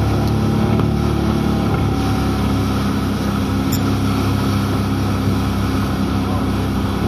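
Outboard motor of a RIB running steadily at speed over a hiss of wind and water; its pitch shifts slightly about two seconds in.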